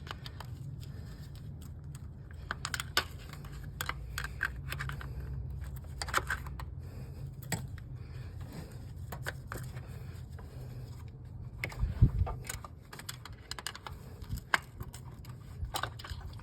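Irregular light clicks and taps of hand tools and parts being handled at an engine, with a louder knock about twelve seconds in, over a steady low hum.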